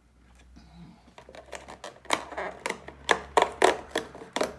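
Hands working at a cardboard advent-calendar box, a series of irregular sharp clicks and taps as a door is pried open and a capsule handled, growing louder and busier after about a second.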